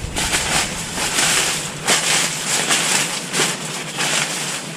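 Rain poncho rustling and crinkling in quick, irregular strokes as it is pulled on and adjusted.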